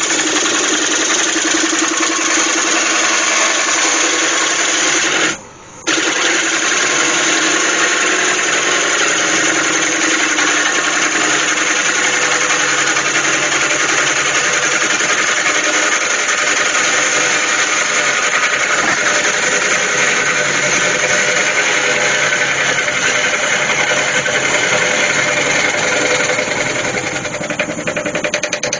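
Woodturning gouge, ground back to a different bevel angle, cutting across the inside bottom of a spalted beech bowl spinning on a lathe: a loud, steady noise of shavings peeling off. The cut breaks off for a moment about five seconds in, then carries on and eases near the end. This is the bevel-rubbing finishing cut across the bottom of the bowl.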